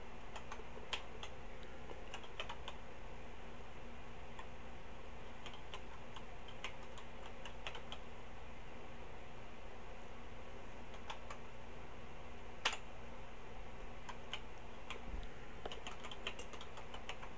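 Keystrokes on a Tandy TRS-80 Color Computer 2 keyboard as a disk-mount command is typed out: sparse, irregular key clicks with one louder key press about two-thirds of the way through, over a faint steady hum.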